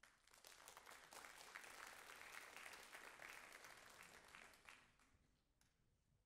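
Quiet audience applause that dies away about five seconds in, with one last clap shortly after.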